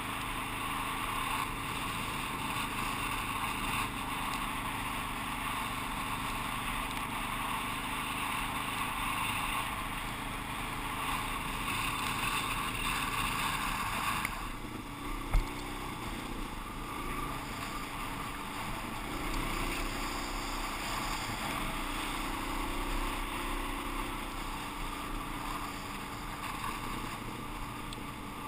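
Suzuki DR-Z400's single-cylinder four-stroke engine running while the bike rides along, with wind noise over the rider-worn camera. About halfway through, the higher part of the sound drops off, followed right after by a single sharp knock.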